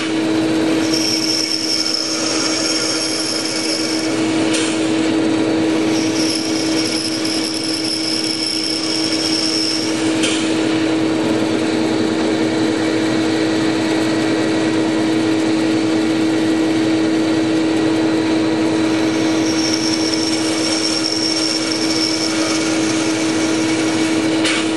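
Small bandsaw running with a steady motor hum while its blade cuts through a thick maple block; a higher hiss comes and goes three times as the cut goes on.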